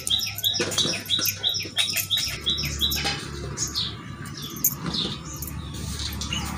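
A small bird chirping a quick, even run of short high notes, about four a second, that stops about two and a half seconds in. Under it, soft clicks and taps of green chillies being destemmed by hand and dropped on a steel plate.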